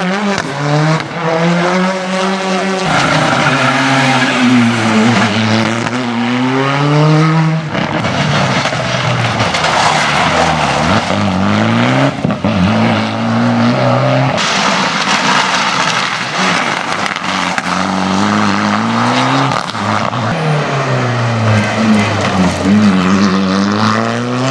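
Rally cars driven flat out on a special stage, one after another: engines rev up, drop back at each gear change or braking point, then climb again.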